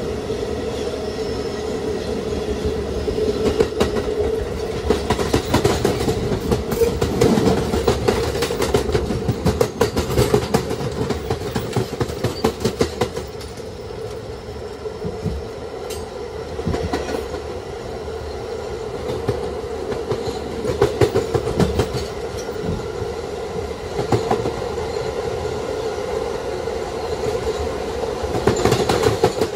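Kawasaki R211A New York City Subway car running at speed between stations: a steady drone with repeated clicks of the wheels over rail joints, busiest in the first half.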